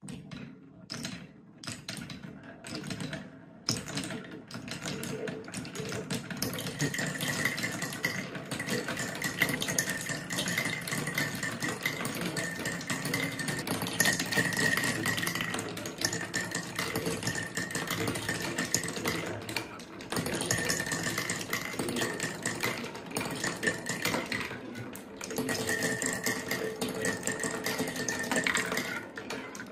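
Marbles rolling and clattering down a Quadrilla marble run of wooden rails and spiral chutes: a few separate clicks in the first seconds, then a continuous rolling rattle of many marbles with a steady high ring through much of it.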